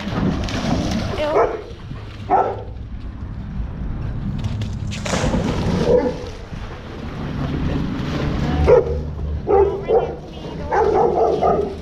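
Dogs barking in short yaps, scattered at first and then in a quick run near the end, with a rush of splashing water about five seconds in as a dog swims in the pool.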